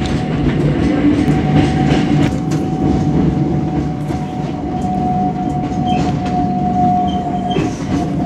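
Hakone Tozan Railway 'Allegra' electric train running on the mountain line, heard from inside the front of the car: a steady rumble of wheels on rail with scattered sharp clicks and a thin, steady high tone.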